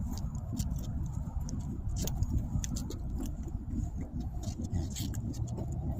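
Steady low rumbling noise on the microphone, with many small scattered clicks and jingles from a dog's collar tags and leash hardware during a walk.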